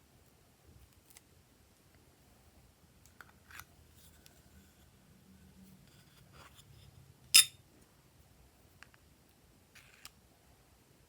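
Small objects being handled: scattered soft clicks and light rustling, with one sharp, loud click a little past the middle.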